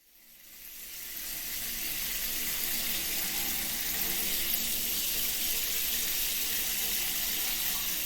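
Steady rush of running water that fades in over about a second from silence.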